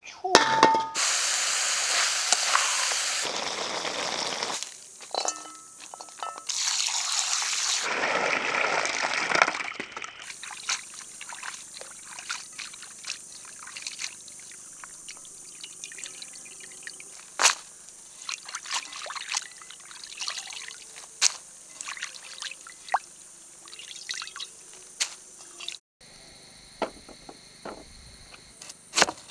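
Water pouring and splashing in two loud stretches within the first ten seconds. Then come quieter wet handling sounds with small clicks as raw chicken wings are worked by hand in a pan. A single sharp knock of a blade on a wooden cutting board comes just before the end.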